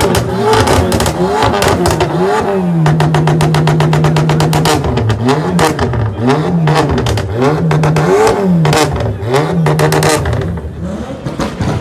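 Car engine on a two-step launch-control rev limiter. The engine is held at a steady pitch for about two seconds, then revved up and down about five times, with rapid exhaust pops and bangs throughout.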